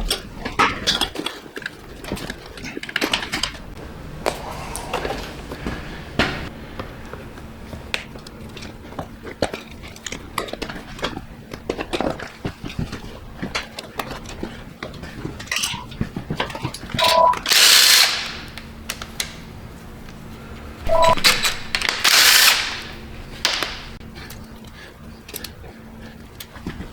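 Mechanic's tool work on an engine on the bench: scattered clicks and knocks of hand tools and parts, with two loud bursts of a power tool, each about a second long, around 17 and 21 seconds in.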